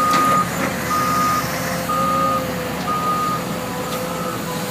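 Caterpillar 329 crawler excavator's travel alarm beeping about once a second, each beep about half a second long, over the machine's steady engine hum and a held whine as it tracks along.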